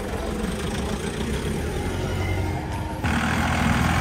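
Off-road vehicle engines running at low revs, a steady low hum. About three seconds in the sound jumps suddenly louder, with an engine running close by.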